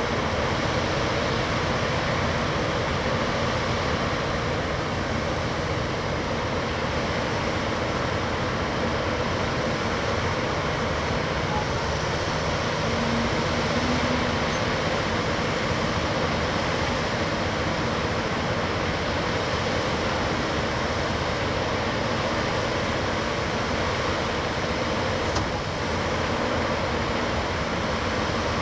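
Backhoe loader engine running steadily, an even mechanical noise without clear changes.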